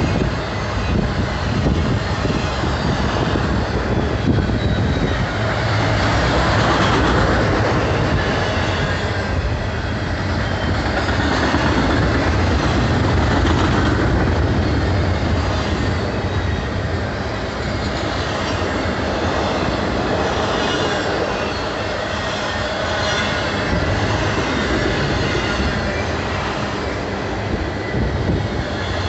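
Double-stack intermodal well cars rolling past close by: a steady rumble of steel wheels on rail with clacking over the rail joints, swelling and easing slowly as the cars go by.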